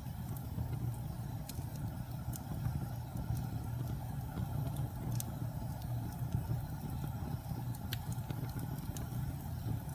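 Wood fire burning in a fireplace: a steady low rumble of the flames with a few sharp crackles and pops scattered through.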